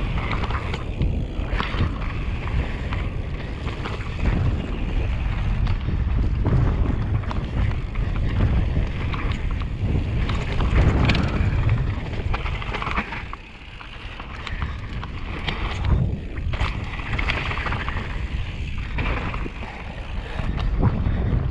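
Mountain bike running fast down a dirt trail, heard through a body-worn action camera: steady wind buffeting on the microphone over tyre noise on dirt and gravel, with frequent rattling clicks and knocks from the bike. It eases briefly about thirteen seconds in.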